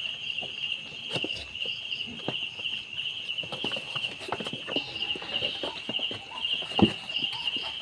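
Crickets chirping steadily in a fast pulsing trill, with faint squeaks from a newborn piglet and scattered light knocks. A sharp thump sounds near the end.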